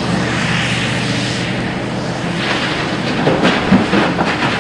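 Toy train running along its track: a steady mechanical hum with wheel clatter and a few knocks in the second half.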